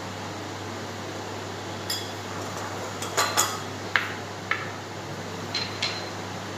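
Glass bowls and a spoon clinking and knocking several times as bhel puri is spooned from a large glass bowl into a small one, over a steady low hum.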